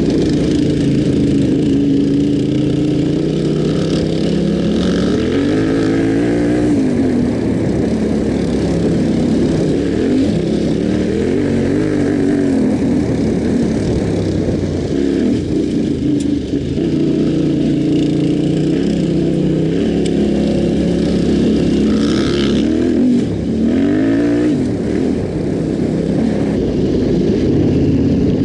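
Yamaha Ténéré 700's parallel-twin engine running under riding load, its pitch swinging up and down several times with throttle changes, over a steady rush of wind and tyre noise.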